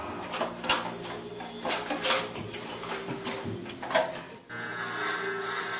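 A few scattered clicks and knocks, then about four and a half seconds in an electric hair trimmer switches on and runs with a steady buzz.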